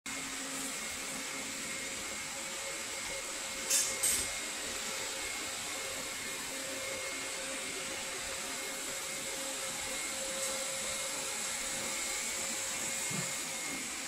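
Roborock S50 robot vacuum cleaner running: a steady whir with a thin high whine, broken by two brief sharp noises about four seconds in.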